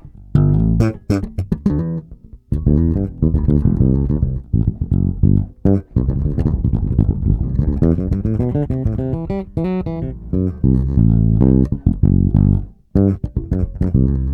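Electric bass guitar played through a multi-band compressor pedal with no other effects, a riff of plucked notes in phrases with short breaks about two seconds in and again near the end.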